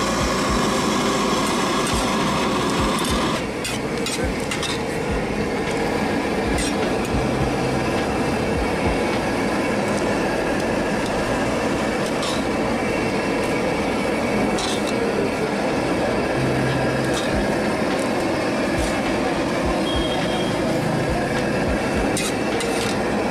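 A long metal ladle scraping and clicking against a large aluminium wok as noodles are stirred and scooped out, over a loud, steady din of noise.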